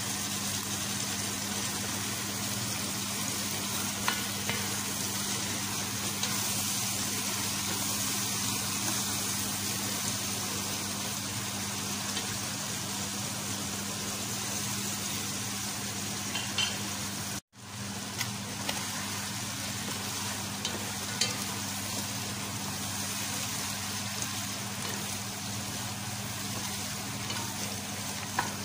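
Chicken pieces sizzling in hot oil with chopped onion and garlic, browning in a pot. A wooden spatula stirs them and knocks against the pot now and then. The sound cuts out for an instant a little past halfway.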